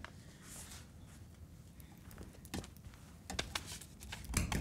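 Quiet pause with a few faint, scattered clicks about halfway through, then a louder knock with a dull thud near the end.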